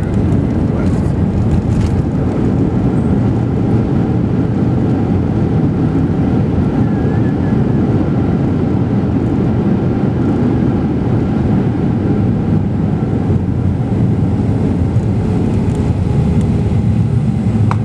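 Steady low roar of an airliner's jet engines and rushing air, heard from inside the cabin as the plane rolls along the ground after landing.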